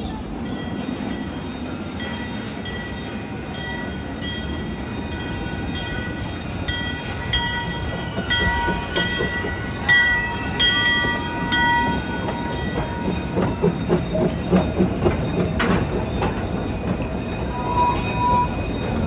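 Train wheels rolling on steel rails, with a high steady squeal throughout. A rhythmic clatter joins about seven seconds in and grows louder toward the end.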